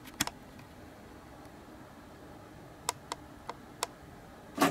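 Sharp clicks and light ticks from handling an infrared light and camcorder on a tripod: a couple of clicks right at the start as the light is switched, a few faint ticks about three seconds in, and a louder knock against the tripod near the end, over a low room hiss.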